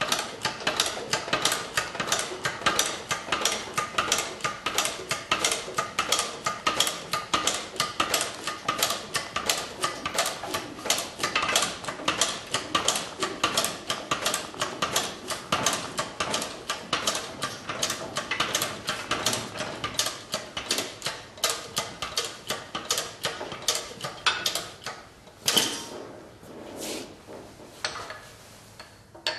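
Steady clicking from a scissor-type riding-mower lift as its hydraulic jack is pumped by foot and the mower is raised, about three clicks a second. Near the end the clicking stops, followed by one louder clank and a few scattered metal knocks.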